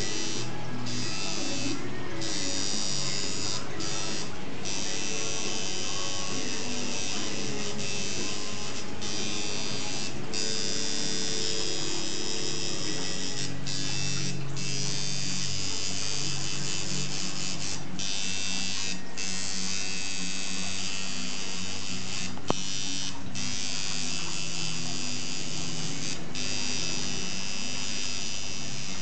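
Coil tattoo machine buzzing as it shades into skin, running in long stretches that stop briefly several times, over background music.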